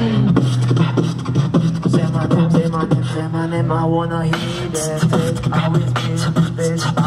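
Two beatboxers performing together into microphones through a PA: fast percussive mouth beats, kick and snare clicks, over a held humming bass line, with short pitched vocal phrases on top.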